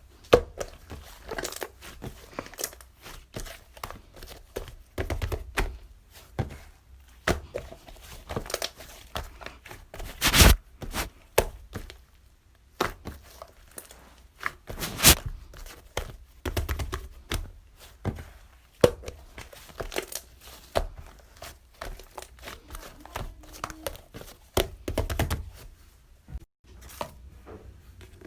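Hands handling and squeezing something crinkly, making irregular crackling, tearing and crumpling sounds mixed with soft thunks and taps. The two loudest sharp snaps come about 10 and 15 seconds in.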